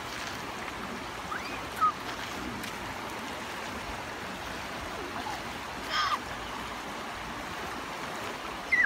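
Shallow river rushing steadily over rocky riffles, with a few brief high-pitched sliding calls about two seconds in, around six seconds and near the end.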